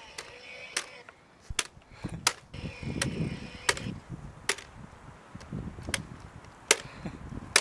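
About ten sharp whacks, roughly one every three-quarters of a second, of a chainsaw being swung like a hatchet against the trunk of a cut Christmas tree, wood struck rather than sawn.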